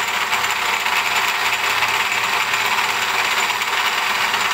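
Milling machine end mill cutting into a steel workpiece: a steady, even cutting noise with a thin high whine over it and a lower machine hum.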